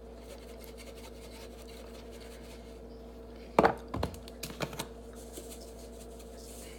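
A few light knocks and scrapes of a utensil against a bowl about three and a half to five seconds in, over a faint steady hum.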